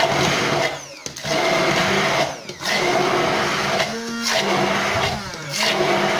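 Braun immersion blender motor running in short bursts with brief pauses, its blade crushing ice with lemon juice in a glass.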